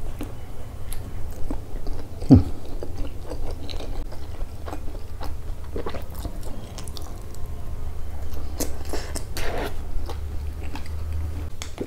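Close-up sounds of a person biting into and chewing an A&W coney dog (sausage in a soft bun with coney sauce and mozzarella): wet mouth sounds and many small clicks, with one louder thump about two seconds in.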